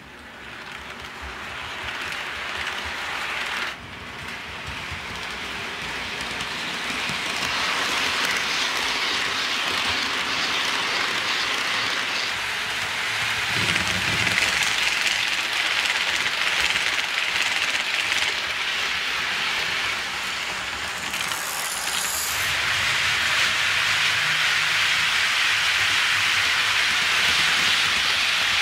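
HO scale model freight train running on ballasted sectional track: a steady, hiss-like rolling noise of the wheels on the rails that builds over the first several seconds. A low hum is added as the diesel locomotive passes close by about 14 seconds in.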